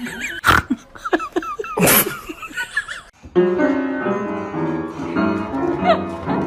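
Two sharp bursts of noise among short wavering calls or voices, then piano music starting about three seconds in.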